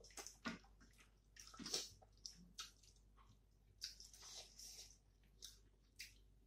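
Quiet, wet eating sounds from people eating rice and curry by hand: chewing and lip-smacking, with fingers squishing and mixing food on steel plates, in short irregular bursts.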